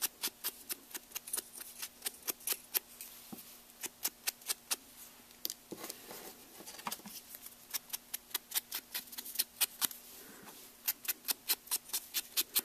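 Quick light dabbing taps of a sponge dauber inking the edges of cardstock paper flowers, about four taps a second, with two short pauses.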